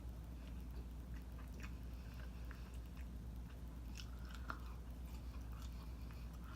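Close-miked chewing of orange chicken and rice: scattered soft mouth clicks and smacks over a steady low hum.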